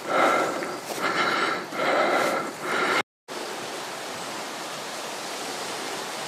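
Rhythmic swishing puffs about once a second, then a short cut and a steady rushing hiss of wind on the microphone.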